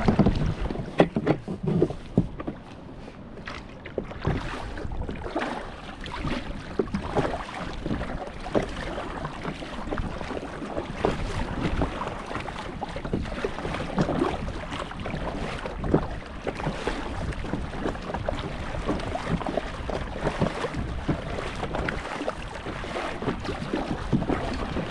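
Kayak being paddled away quickly: paddle blades dipping and splashing in the sea and water sloshing along the hull, with irregular knocks and some wind on the microphone.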